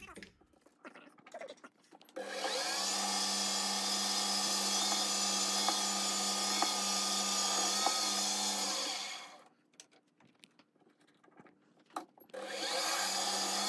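Small metal lathe running while a twist drill held in the tailstock chuck is fed into a spinning steel bar: a steady hum with a high hiss. It runs for about seven seconds, stops, and starts again near the end.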